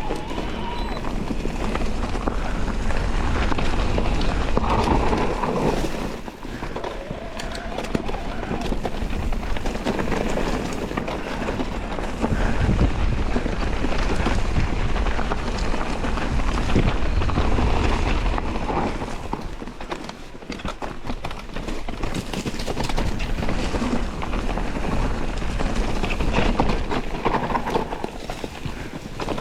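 Electric mountain bike ridden fast down a rough trail: wind rushing over the microphone, with tyres rolling over dirt and rocks and the bike rattling. The noise swells and eases every few seconds.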